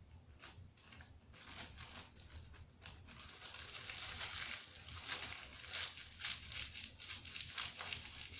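Crinkly rustling with many small clicks, denser after about three seconds: hands handling the packaging of a slime kit's add-ins.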